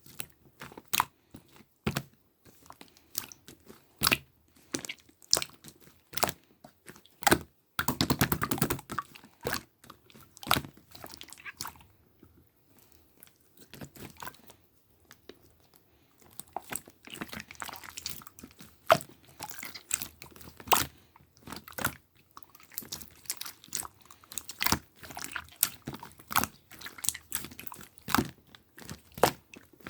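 Slime being squished and poked by hand, giving irregular crisp pops and clicks, with a dense run of crackling about eight seconds in.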